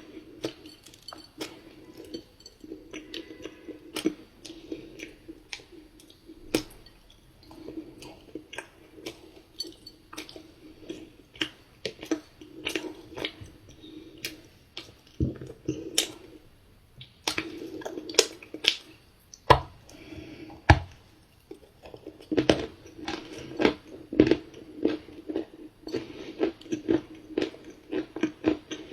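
Close-miked chewing of dry, crumbly cookie chunks: irregular sharp crunches and crackles throughout, coming thicker and louder in the second half.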